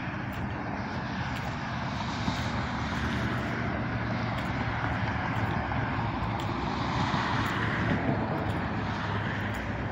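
Steady rush of passing road traffic, cars and tyres on a busy road, swelling a little about seven to eight seconds in.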